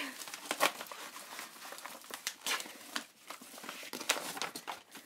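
A paper mailing envelope being torn open and handled, with a dense run of irregular crinkling and rustling crackles.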